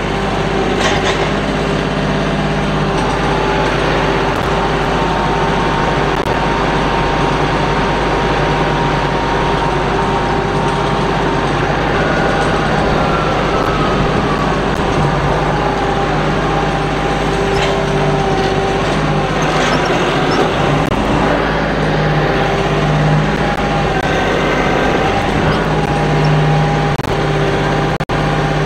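Kioti NS6010 compact tractor's diesel engine running steadily under load as it drives and works the grapple loader, with a faint whine that glides in pitch about halfway through.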